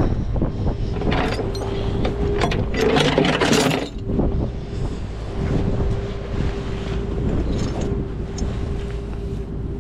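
Strong wind buffeting the microphone, under a steady mechanical hum from an idling vehicle. A cluster of crackling and knocks comes between about one and four seconds in.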